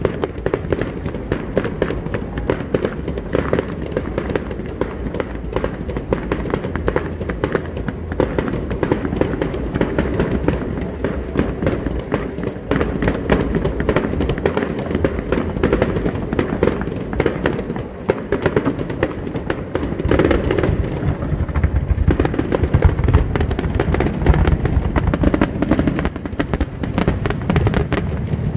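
Fireworks display: a dense, unbroken run of rapid pops and crackles, growing heavier and louder with deeper thuds from about twenty seconds in.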